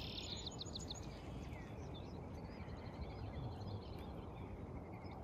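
Faint birdsong: a quick run of high chirps in the first second, then scattered warbling notes, over a low, steady background rumble.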